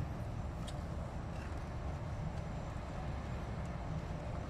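Wind buffeting a phone microphone: a steady, unevenly fluttering low rumble.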